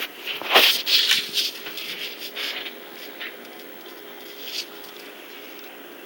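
Rustling and scraping from a handheld camera being moved, bunched in the first few seconds, then a faint steady hum with a single short scrape about four and a half seconds in.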